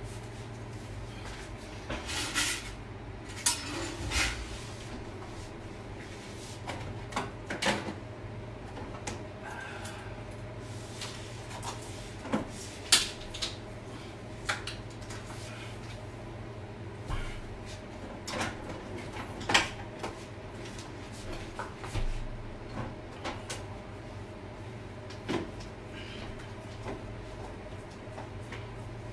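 Someone rummaging in an open refrigerator: scattered clicks, knocks and light rattles of things being handled, with cloth rustling early on, over a steady low hum.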